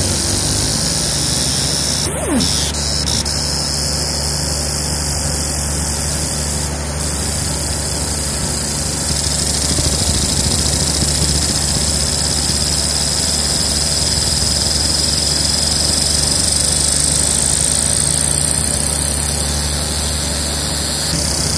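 A 30 W fiber laser engraving a metal plate. There is a steady high-pitched whine and hiss from the laser marking, over a constant low machine hum, and the whine grows stronger about nine seconds in.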